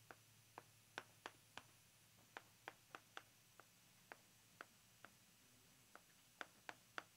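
Chalk writing on a chalkboard: a string of faint, sharp taps as each stroke of chalk meets the board, irregular at about two to three a second, with a short pause a little past the middle.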